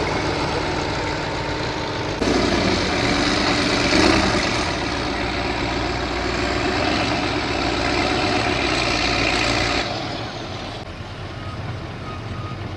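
Diesel engine of an eight-wheeled trial truck working hard as it crawls up a steep dirt slope. It gets louder about two seconds in and eases off near the end.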